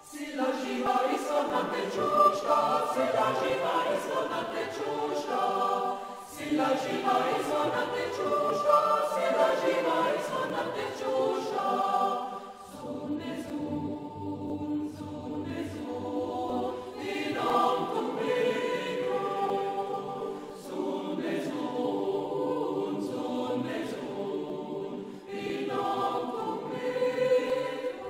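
Choir singing a slow piece in phrases a few seconds long, starting suddenly out of silence.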